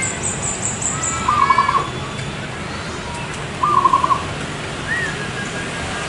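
Zebra dove (perkutut) cooing in its rapid trilled phrases: one about a second and a half in and another near four seconds. Higher arched whistled notes and a quick run of very high chirps in the first second sound alongside, over a steady background noise.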